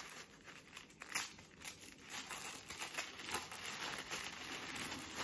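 Tissue paper crinkling and crackling as hands unwrap a paper-wrapped bundle, in irregular bursts with a sharper crackle about a second in.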